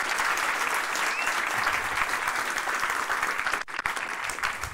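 Audience applauding, the clapping thinning out in the last second or so.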